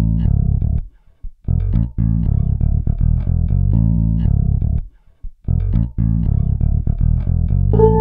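Music led by a plucked bass guitar line, dropping out briefly twice.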